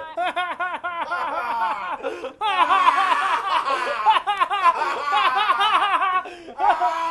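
A person laughing hard and fast: a rapid run of high-pitched "ha" bursts, about five or six a second, pausing briefly a little after two seconds in and again near the end.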